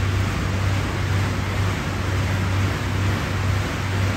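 Air bike's fan wheel whooshing steadily as it is pedalled and pushed hard, with a low hum that swells in a steady rhythm with the strokes.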